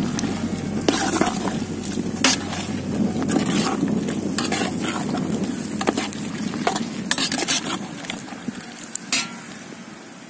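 A long-handled slotted metal ladle stirring a boiling chicken curry in a large metal pot, with scrapes and sharp knocks here and there as the ladle hits the pot's sides. It goes quieter for the last couple of seconds.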